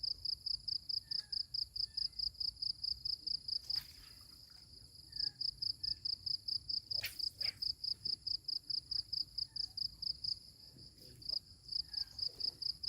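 An insect, likely a cricket, chirping in a fast steady pulse of about four to five high chirps a second. It breaks off twice briefly, with a couple of faint clicks between.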